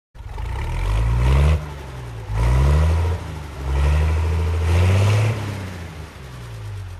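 A vehicle engine pulling hard and climbing in pitch, dropping back suddenly three times as if shifting up through the gears, then running more evenly near the end.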